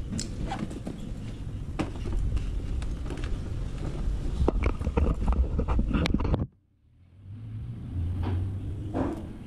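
Handling noise from a handheld camera, with rustling and clicking as things are packed into a scooter's under-seat compartment, over a steady low rumble. The sound cuts out almost completely for about half a second about two-thirds of the way through, then comes back.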